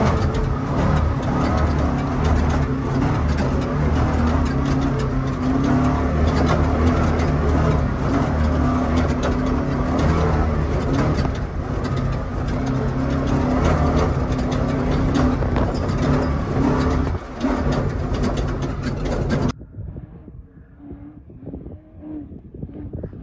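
Prerunner truck's engine running under load inside the open, roll-caged cab while driving fast over rough desert sand, with knocks and rattles from the chassis. About 19 seconds in, the sound drops to quiet wind noise with a distant engine as the truck approaches from far away.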